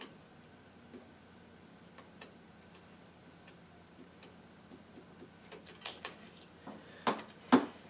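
Scattered light clicks and taps of fingers and trading cards on a wooden tabletop, about one a second at first, then coming closer together, with two sharper, louder clicks near the end.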